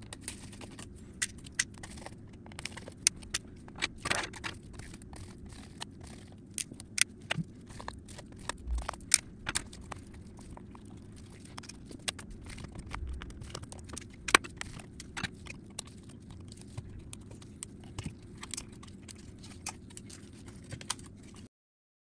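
Scattered sharp clicks, taps and light scrapes of small tools, screws and parts as the logic board of a 13-inch MacBook Pro A1708 is unscrewed, unclipped and lifted out of its aluminium casing, over a low steady hum. The sound stops suddenly near the end.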